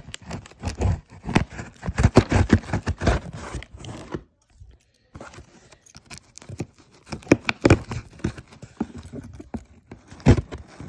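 Cardboard shipping box being torn and pried open by hand: tearing, scraping and crackling of cardboard and tape, broken by a brief pause about four seconds in.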